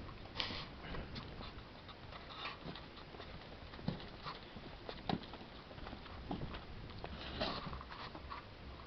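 Scattered light clicks and knocks of parts and tools being handled, with two sharper knocks in the middle and brief scraping rustles near the start and about three quarters of the way through.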